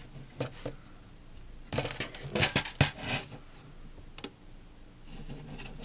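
Hard plastic clicking and knocking as a 3D-printed clamp is forced onto a ring light's mount by hand. There is a cluster of sharp clicks about two to three seconds in and a single click a little after four seconds.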